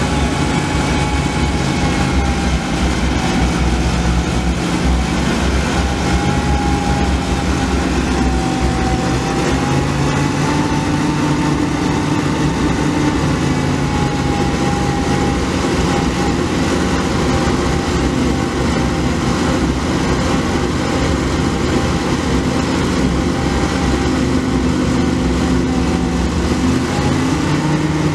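1983 Ford F700's 6.1L V8 gas engine running steadily at idle.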